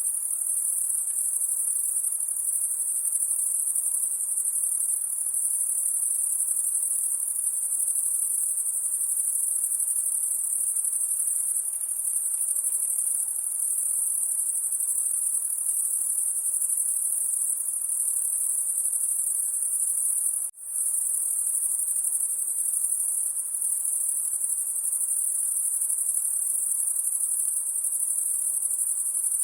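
High-pitched insects shrilling at night, a continuous, very high, even drone, with one momentary break about twenty seconds in.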